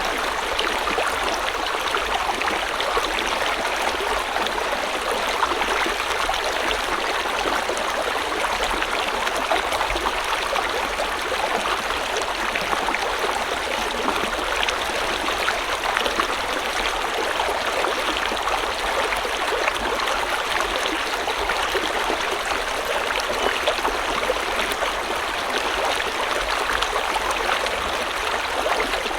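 River or stream water flowing with a steady, unbroken rush and fine splashing.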